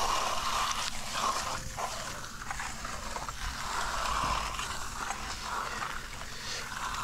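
Hand trowels scraping and swishing across the surface of fresh, wet concrete as the slab is finished: a continuous scraping hiss that swells and fades with each stroke.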